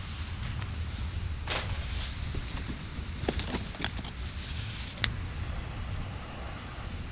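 Steady low rumble of wind on the microphone, with a few sharp, scattered clicks.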